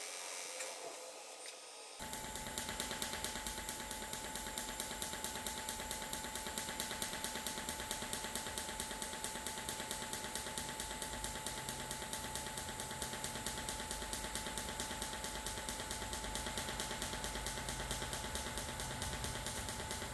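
TIG welding arc on stainless steel: a soft steady hiss, then from about two seconds in a rapid, even crackling pulse with a thin steady tone over it, typical of a pulsed TIG arc.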